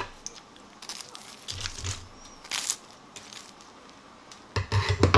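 Kitchen scissors and metal tongs working a piece of deep-fried meat in a starch and egg-white batter: scattered crisp crunches and clicks, loudest near the end.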